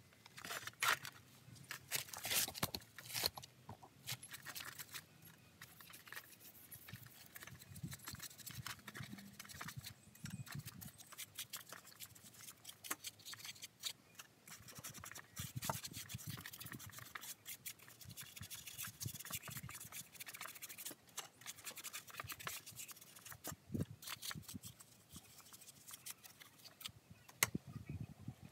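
Scattered light scrapes, rubs and clicks from a dirty Stihl MS170 chainsaw being handled on a sheet-metal tray. The sounds are busiest in the first few seconds and sparser after that. The saw is not running.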